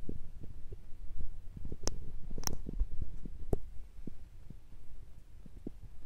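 Handling noise from a handheld camera: irregular low thumps and rumbles, with three sharp clicks in the middle, easing off after about four seconds.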